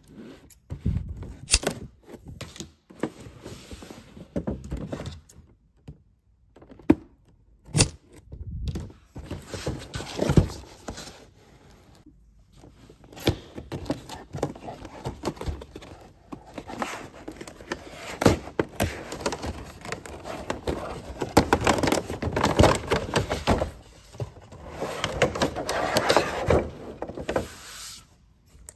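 Hands unboxing a toy: cardboard box flaps scraping and sliding, and a clear plastic display case crinkling and tapping as it is pulled out. Sharp clicks and thunks come throughout, with longer stretches of rubbing and rustling.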